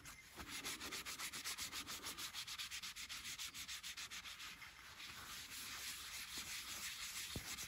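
A cloth rubbed rapidly back and forth over a laser-etched ceramic tile painted with black spray paint, about six strokes a second, wiping the etching residue off the surface.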